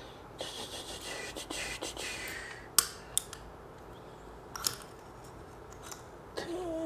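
Small metal parts and a magnetized Glock front-sight tool being handled while a front sight is fitted to a pistol slide. There is some rustling, then a few sharp metallic clicks.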